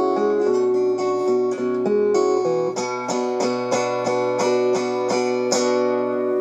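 Solo acoustic guitar playing the instrumental ending of a song: picked notes at first, then from about three seconds in a run of even strums, about three a second, closing on a final chord that is left ringing.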